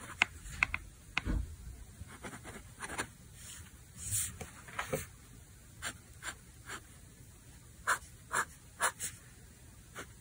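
Steel medium nib of a Benu Talisman fountain pen scratching on grid paper in many short, separate strokes as letters and hatching lines are drawn.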